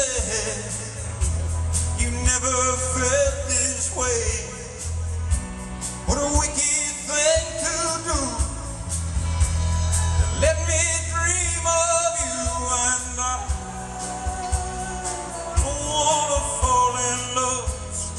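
Live rock-and-roll band playing: a man singing lead over electric guitar and drums.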